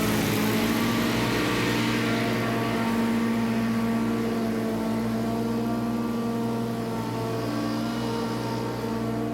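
Mower engine running steadily at high speed, an even engine hum.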